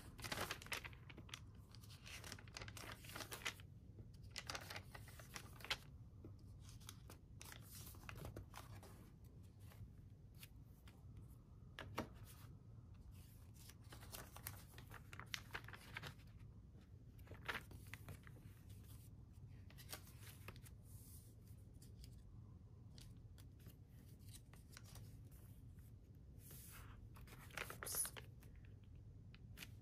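Pages of a thick, collaged Hobonichi Cousin journal being turned one after another, with faint dry paper rustles and flaps at irregular intervals.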